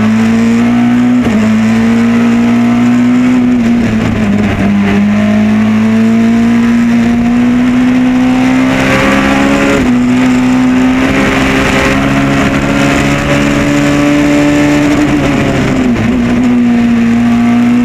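Ford Escort Maxi Kit Car's engine under hard throttle on a rally stage, heard from inside the cabin. Its pitch climbs slowly and dips briefly three times.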